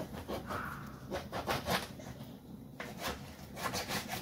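A fish being handled on a wooden cutting board: two short runs of scrapes and taps against the board.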